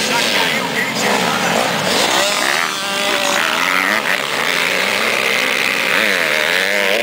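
Several motocross dirt bike engines revving hard as the pack accelerates away from the start, their pitches rising and falling over one another as the riders work the throttle and shift.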